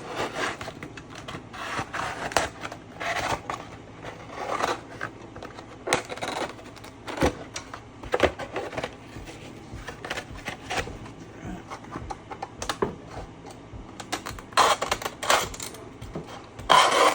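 A blade cutting and scraping around the dust cover of a JBL 2268H 18-inch neodymium subwoofer cone: irregular scratchy strokes and sharp clicks, with no steady rhythm.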